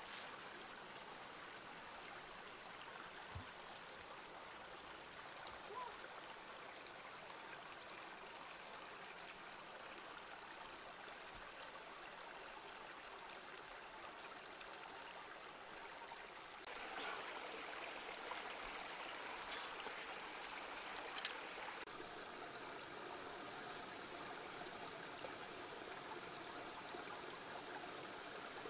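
Shallow rocky stream flowing over stones, a steady trickling rush that gets louder about two-thirds of the way through.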